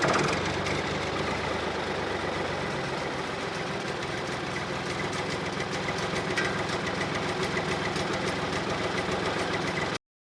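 Tractor engine idling steadily, cutting off abruptly near the end.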